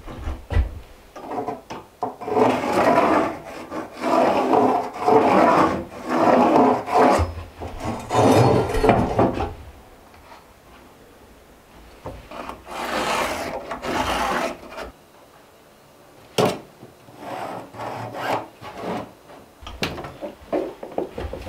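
Rubbing and scraping against wood in repeated strokes: a long run of strokes, a shorter run a few seconds later, then a few scattered knocks.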